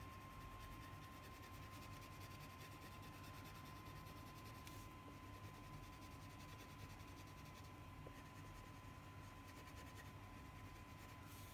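Faint scratching of a crayon being rubbed back and forth on paper while colouring, over a low steady hum and a thin steady whine.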